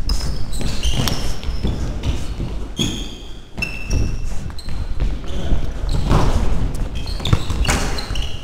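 Indoor football game in a sports hall: running footsteps, thuds of the ball and sneakers squeaking sharply on the hall floor, echoing in the large room.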